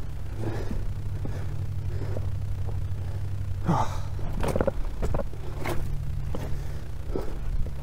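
A man breathing hard as he clambers over boulders and shingle, with scattered footsteps on the stones over a low steady rumble.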